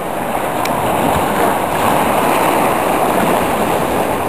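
Sea waves washing and breaking around the rocks of a groyne, a steady rush of surf that swells about a second in.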